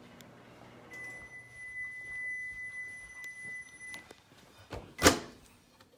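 Microwave oven's end-of-cycle beep, one steady high tone held about three seconds as the reheating finishes, then a loud click of the door latch being opened about five seconds in.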